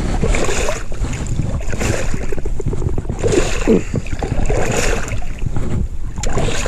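Rumbling handling and rustling on a body-worn camera's microphone as the wearer crouches over a flathead catfish being landed, with a short falling vocal sound about three and a half seconds in.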